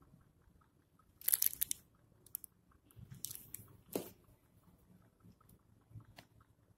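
Scattered light clicks and crackling taps from handling titration glassware and the electrode stand, with a short cluster about a second and a half in and a single sharper click about four seconds in.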